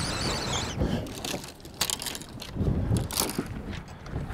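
Scattered knocks and clicks on a bass boat at irregular moments, over wind and lapping water, while a fish is fought on rod and reel.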